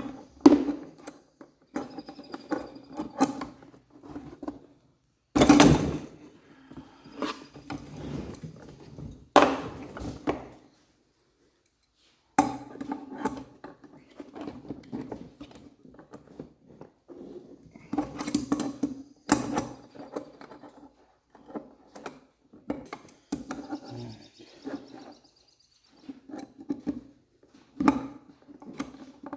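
Adjustable wrenches clinking and knocking on the metal fittings of a surface cleaner's spray bar as they are loosened, with thunks as tools and the cleaner's housing are handled.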